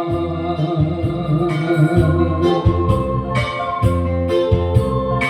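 Instrumental backing music of a ballad, with no voice: held keyboard chords over bass notes and a steady drum beat.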